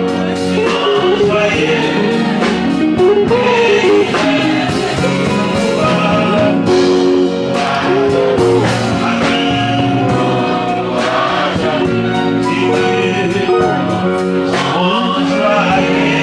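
Gospel music: voices singing a hymn-like song together over steady instrumental accompaniment.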